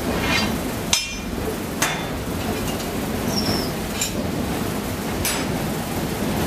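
A long steel fire rake knocking against the firebox and furnace door of a paddle steamer's wood-fired boiler as the fire is stoked. There are several sharp metal clanks, the first about a second in and the last near the end, over a steady low machinery rumble.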